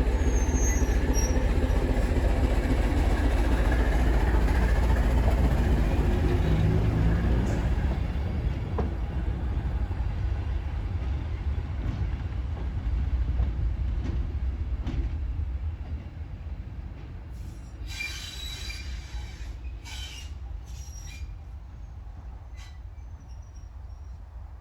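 Heritage train running past and moving away, its heavy low rumble fading steadily, with a few brief wheel squeals near the end.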